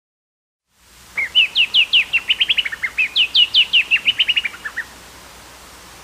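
Black-throated honeyeater singing: two runs of quick down-slurred whistled notes, beginning about a second in. Each run falls in pitch and slows toward its end, the species' typical trilled song.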